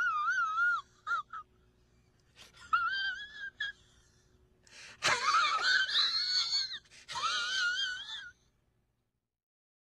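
A man crying in a high, wavering falsetto wail, in several broken bursts, the longest and loudest starting about five seconds in.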